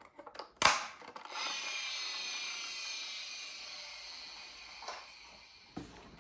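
A sharp click, then a miniature toy car rolling across a surface: a steady, high scraping whir from its wheels that slowly fades out over about four seconds.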